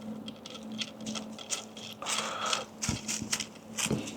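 Light clicks, taps and scrapes of small bicycle parts and tools being handled while fitting a stem cap, with a short rustle about two seconds in and two duller knocks near the end.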